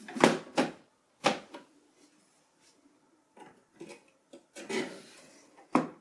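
Memory riser cards of an Apple Mac Pro 1,1 being slid into their slots in the memory cage: a few sharp clicks and knocks in the first second and a half, then fainter clicks, a short scraping slide about five seconds in, and another click near the end.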